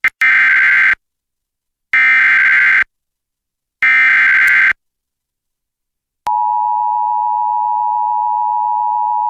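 Emergency Alert System header: three short, identical bursts of buzzing digital data tones about a second apart. After a short pause the steady two-tone EAS attention signal starts and holds, marking the start of a new severe thunderstorm warning.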